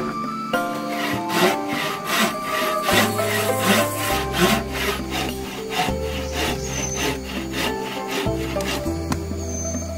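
Wooden hand frame saw cutting across the end of an old weathered plank, in quick back-and-forth strokes about three a second. The sawing starts about a second in and stops near the end, with background music playing underneath.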